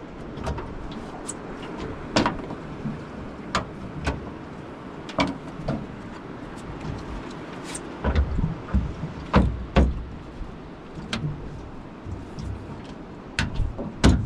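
Irregular clicks and knocks of boat accessories being pulled out of and slotted into RailBlazers mounts: a spear gun holder taken out and a bait board fitted. There are a few heavier thumps a little past the middle.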